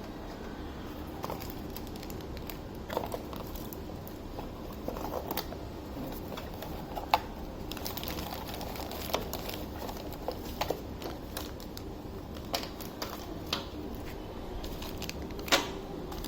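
Handling of action-camera packaging and accessories: light plastic crinkling with scattered small clicks and knocks, the sharpest about seven seconds in and again near the end.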